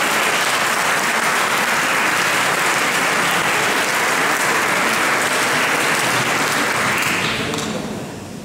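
Audience applauding, steady, then dying away about a second before the end.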